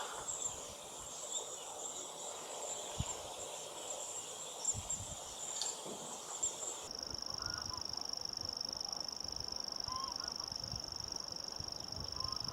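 Outdoor natural ambience with a steady high-pitched buzz. About seven seconds in it switches abruptly to a steadier, slightly lower high drone.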